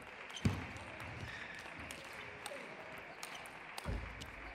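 Table tennis rally: the celluloid ball knocks sharply off a paddle about half a second in and again near the end, with lighter ticks of the ball between, over faint crowd noise.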